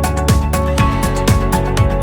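Background music with a steady beat: held tones over a regular pulse with falling bass-drum hits about twice a second.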